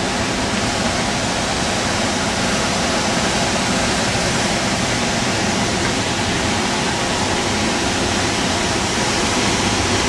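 High Force, a large waterfall on the River Tees, giving a steady, unbroken rush of falling water.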